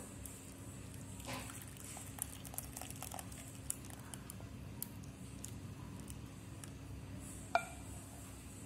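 Faint pouring and squelching of thick milk with cooked vermicelli from a pan into a glass bowl, with a few light clicks and one sharper clink near the end.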